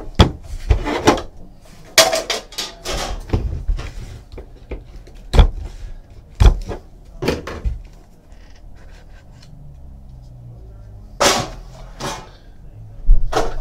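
A cardboard trading-card hobby box being handled and opened on a desk: a run of knocks and clacks as the box is lifted, set down and cut with a box cutter, then two short scraping rustles near the end as the contents are pulled out.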